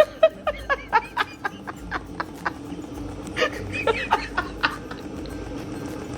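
A person laughing in rapid short bursts that trail off, then a second, shorter bout of laughter about three and a half seconds in.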